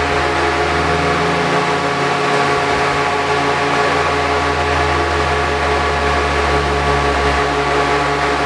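Honda Civic Type R EP3's K20 four-cylinder engine running on a chassis dyno, holding a steady speed with an even drone and no revving.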